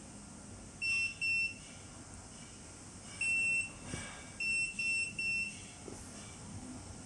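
High electronic beeps from a cordless pruner's built-in beeper: two short beeps, then one longer beep, then three short beeps in quick succession.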